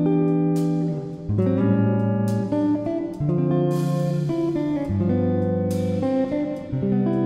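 Background music: acoustic guitar strumming chords, changing chord about every second.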